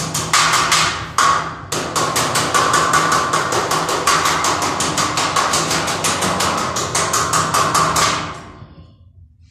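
Rapid, even hammer taps on a steel door frame, about eight a second, with the metal ringing under them; they stop briefly twice near the start and die away near the end.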